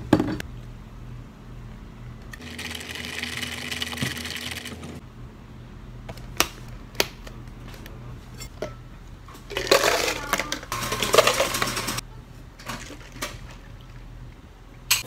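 Iced drinks being made at a café counter: a few seconds of fizzing hiss, sharp clicks and knocks of plastic cups and lids, and a louder stretch of rattling ice and pouring near the middle.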